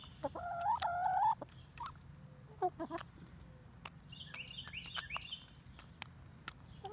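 Backyard hens calling while they peck at a frozen corn treat: one drawn-out call about a second long near the start and a few shorter clucks later, with sharp taps of beaks on the ice. A quick run of high chirps comes about halfway through.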